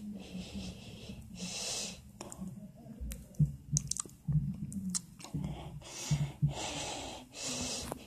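A man breathing heavily and wheezily through his open mouth right against the microphone. Long rasping breaths come about a second and a half in and twice near the end, with sharp mouth clicks and short low grunts in between.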